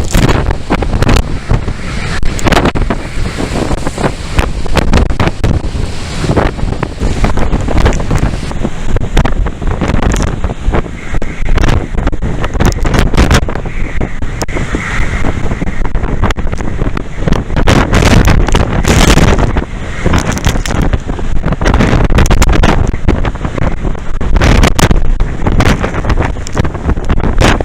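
Storm-force wind buffeting the microphone in irregular gusts, a loud low rumble over the noise of rough surf.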